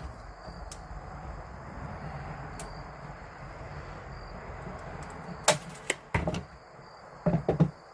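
Wood trim and tools being handled during trim work: a low steady rumble, then a few sharp knocks and clicks about five and a half seconds in and again near the end.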